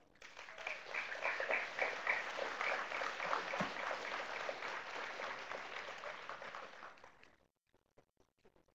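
Audience applauding, tapering off and dying away about seven seconds in.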